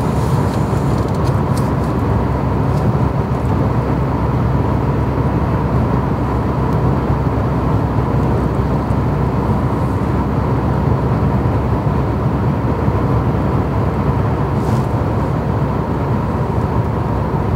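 Steady engine and tyre noise of a car driving through a long road tunnel, heard from inside the cabin while the car climbs a steady uphill grade. A faint steady high whine runs under it.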